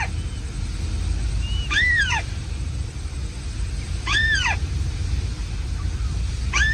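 Recorded bird lure call played on loop from a decoy speaker: three short calls about two and a half seconds apart, each rising then falling in pitch, over a steady low rumble.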